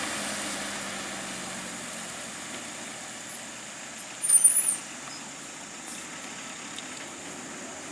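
Stopped road vehicles idling, a steady engine hum under a hiss, with a brief loud high-pitched sound about four seconds in.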